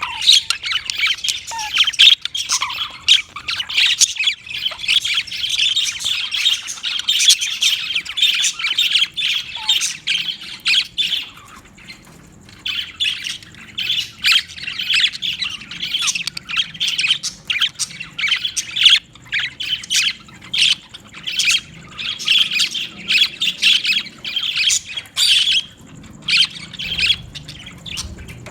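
Budgerigars chattering: a dense, continuous run of quick calls, with brief lulls near the middle and near the end.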